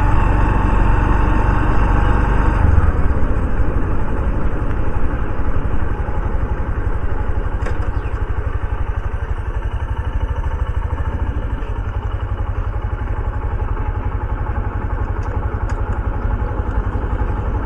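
Honda CD 110 motorcycle's small single-cylinder four-stroke engine running. About three seconds in the sound drops to a lower, steadier running.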